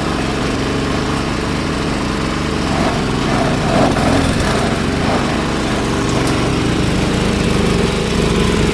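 8 HP diesel engine driving a G-30 chopper-grinder, running steadily under load, with the hum of the grinding drum over the engine.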